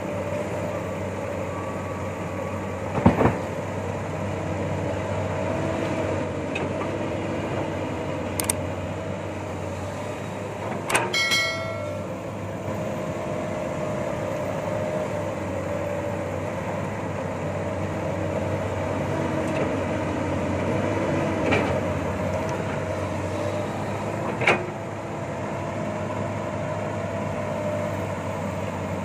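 Komatsu PC200 hydraulic excavator running steadily as it digs rocky soil, with several sharp metallic clanks from the bucket striking stones, the loudest about three seconds in and a ringing one around eleven seconds.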